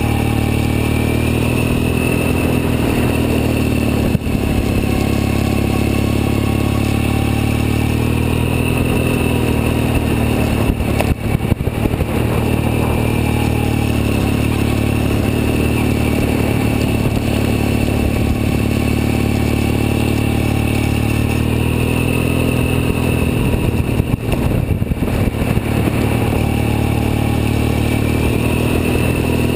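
Triumph Thruxton's parallel-twin engine running at steady part throttle, heard close up, its pitch rising and falling gently as the bike goes round in repeated leaning turns. Twice there is a brief spell of rattling noise.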